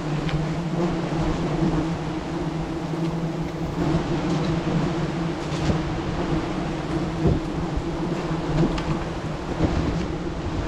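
A swarm of wild bees buzzing: a steady low hum over a constant rushing noise.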